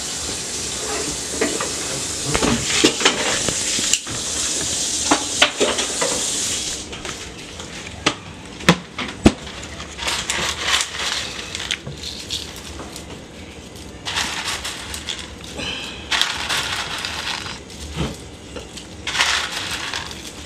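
Kitchen plating sounds: food sizzling in a pan for the first several seconds, then tongs and dishes clattering against a ceramic serving platter, with a couple of sharp knocks about nine seconds in.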